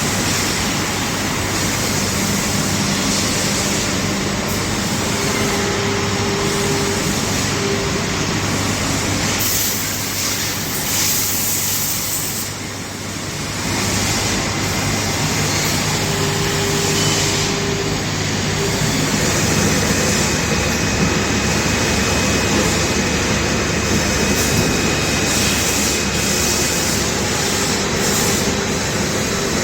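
TRAUB TNM 28 CNC lathe running and machining, a steady dense mechanical noise with faint held tones that come and go. It briefly dips about twelve seconds in, then picks up again.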